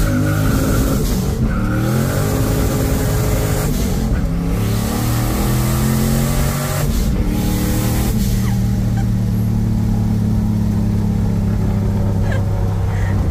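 1969 Camaro's engine heard from inside the cabin, accelerating up through the gears: its pitch climbs and drops back at shifts about one and a half, four and seven seconds in, then holds steady as the car cruises.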